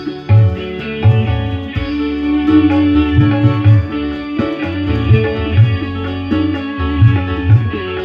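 Guitar-led music played loud through Ashley PA2.2+ power amplifiers into 12-inch and 18-inch speakers, with the tweeters switched off. Heavy bass notes come back in a repeating pattern under the guitar.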